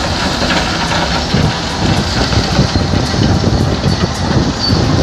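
Coal pouring from a loading conveyor onto a heaped pile in a barge hold, a continuous rushing rumble.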